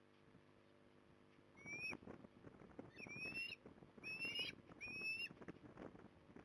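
Juvenile ospreys calling: four short, high whistled calls, each rising slightly. The first comes about a second and a half in, and the other three follow close together.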